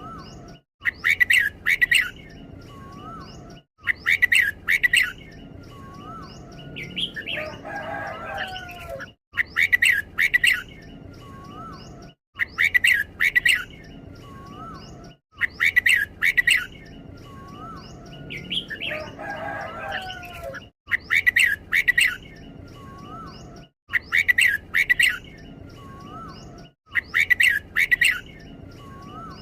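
Red-whiskered bulbul singing, repeating loud short phrases of quick clear notes every few seconds in the doubled pattern its keepers call 'bernl'. A lower warbling bird call comes in twice, and the sound cuts out abruptly for a moment several times.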